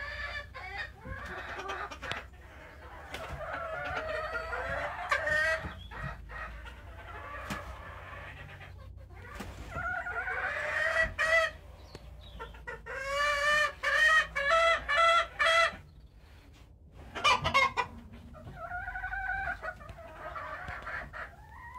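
A flock of brown Leghorn chickens calling and clucking, with roosters crowing; one bird gives a quick run of short repeated calls about two-thirds of the way through.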